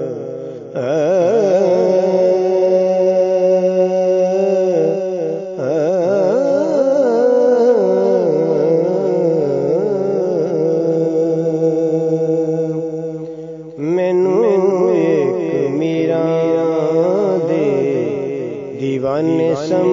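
A singer performs a Sufi devotional song in long, ornamented, wavering phrases over a steady low drone. The voice breaks briefly twice between phrases.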